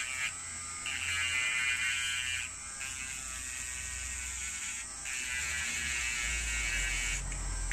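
Small electric rotary tool with a sanding drum grinding rust off the jaw of an old steel open-end wrench: a steady high motor whine, with a louder rasping grind in two stretches of about two seconds as the drum is pressed onto the metal.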